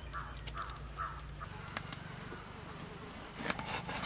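Kitchen knife cutting and scraping through the skin and flesh of a large seer fish, a few scratchy clicks that are loudest near the end, over a steady low buzz.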